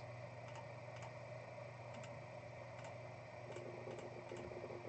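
Faint, irregular clicks of a computer mouse and keyboard, about a dozen scattered through, over a low steady hum.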